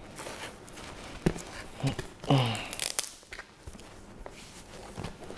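Sticker kit packaging being torn and pulled open, with a few sharp clicks and a short falling squeak about two seconds in.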